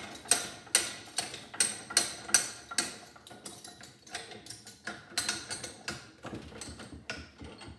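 Hammer striking a punch to drive the copper core out of an aluminum heat sink held in a bench vise. About six sharp metallic strikes come in the first two and a half seconds, then lighter, irregular taps and clinks.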